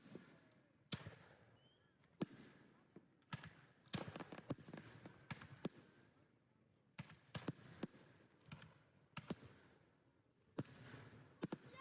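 Distant fireworks going off: faint bangs and pops at uneven intervals, some in quick clusters, each dying away briefly.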